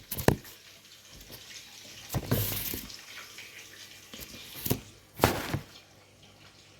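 Kitchen sink sounds: water splashing, with several short knocks and clatters, the loudest about five seconds in.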